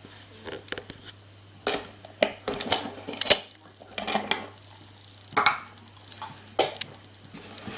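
Small metal tools and parts from a lock-pinning kit clinking and clattering against a hard surface: about six separate knocks and rattles, the loudest cluster near the middle.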